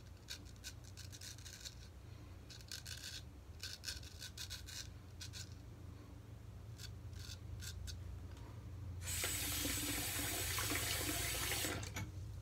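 Straight razor scraping through four days' stubble under the chin in quick runs of short strokes. About nine seconds in, water runs into the sink for roughly two and a half seconds, louder than the strokes.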